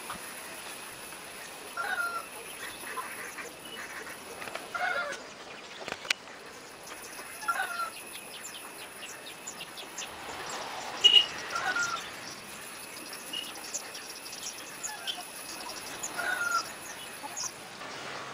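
Roosters sparring: short clucking calls every couple of seconds, with a louder burst of wing-flapping about eleven seconds in.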